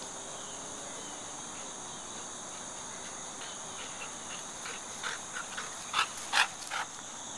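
Steady high-pitched chorus of crickets, with a run of short sounds from a dog running up close past the microphone in the second half, loudest about six seconds in.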